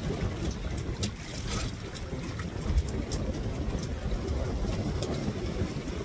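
Wind buffeting the microphone in a steady low rumble, with choppy water splashing against a bamboo raft.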